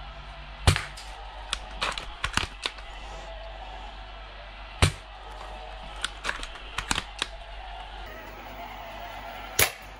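Scoped airsoft sniper rifle firing three shots about four seconds apart, each a sharp crack, with clusters of lighter clicks between the shots.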